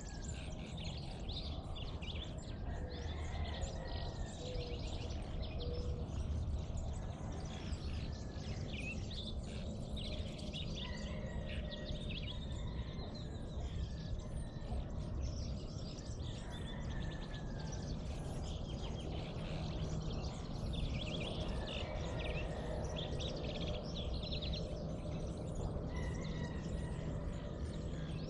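Several birds chirping and calling at dawn, with short chirps and a few gliding whistled notes throughout, over a steady low rumble.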